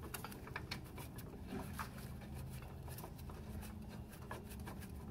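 Faint, light metallic clicks and scrapes of a nut being threaded by hand onto the rear axle bushing bolt, over a low steady hum.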